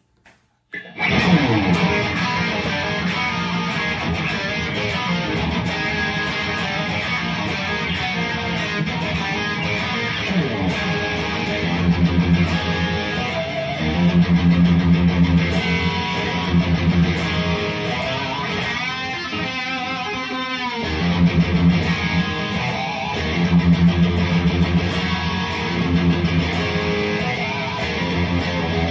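Electric guitar played through a Friedman BE-100 Deluxe amp into a 1x12 Celestion Redback cabinet. It starts about a second in, mixing heavy low riffing with lead lines, and has a stretch of wavering, bending notes about two-thirds of the way through.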